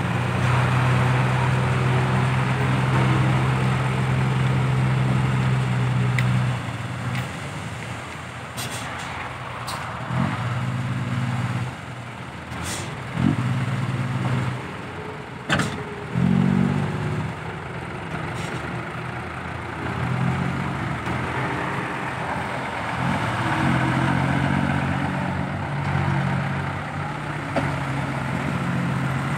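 Diesel engines of a Ford 6640 farm tractor and dump trucks running at work. A steady engine drone holds for the first several seconds, then rises and falls, with a couple of sharp clanks in the middle.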